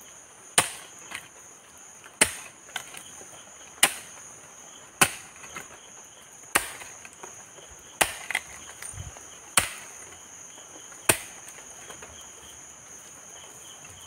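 Iron hoe blade chopping into soft earth, about eight blows roughly a second and a half apart, stopping about three seconds before the end. The hoe is loosening soil at the base of an areca palm to make a planting pit. A steady high-pitched insect hum runs underneath.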